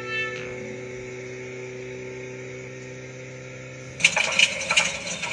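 A steady low hum, then about four seconds in a sudden rough, irregular spluttering from a cartoon school bus's engine as it breaks down and stalls.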